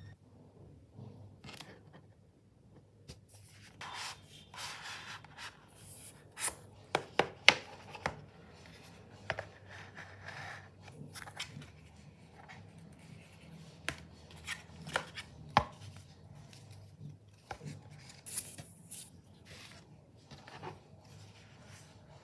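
Unboxing a stylus pen: plastic wrapping rustling and being pulled off, then a white cardboard box opened and its lid and inside tray slid and handled, with scattered sharp taps and clicks, the loudest a quick run of taps about seven seconds in.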